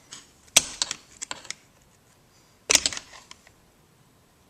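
Two short bursts of sharp metallic clicks and clatter, about half a second in and again near three seconds: tools and small screws being handled on the transmission's cover.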